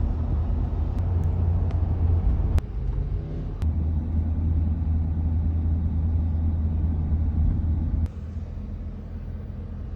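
A car driving, with a steady low rumble of engine and road noise and a few sharp clicks. The rumble eases off about eight seconds in.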